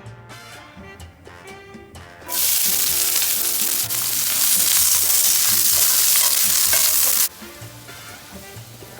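Chicken sizzling loudly as it fries in hot oil in a pan. The sizzle starts suddenly a couple of seconds in and cuts off about five seconds later, over quiet background music.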